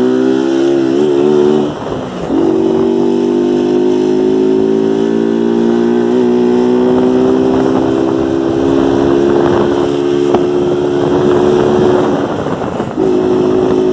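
Motorcycle engine with a de-baffled ('desmiolado') exhaust running steadily under way. The exhaust note drops out briefly twice, about two seconds in and near the end, then picks up again.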